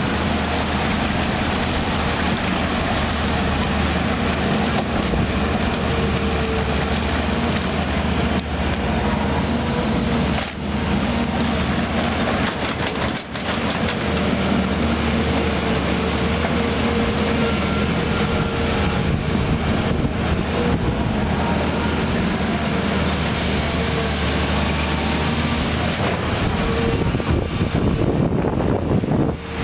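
Volvo EC210B crawler excavator's six-cylinder diesel engine running steadily with a constant pitched hum as the machine digs mud.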